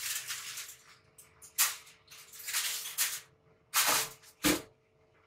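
Aluminium foil crinkling and rustling in several bursts as the foil-wrapped lid of a steamer is taken off and handled, with a short knock near the end.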